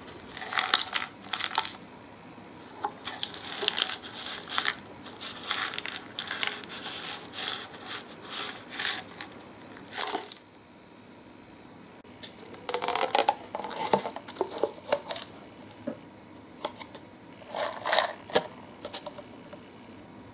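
Crinkling and tearing of a cup noodle's packaging handled and opened by hand, in many short bursts with a quiet pause about halfway. The cup's lid is peeled back.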